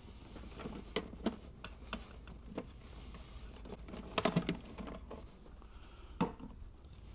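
Hard plastic and rubber air-intake tubing being handled and pulled free from a MINI Cooper's engine bay: scattered light plastic clicks and knocks, with a brief louder clatter a little after four seconds in.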